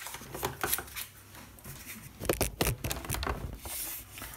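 Plastic clicks and scrapes as the battery pack of a Roborock S7 robot vacuum is handled and lifted out of its plastic bay, with a few sharper knocks about halfway through.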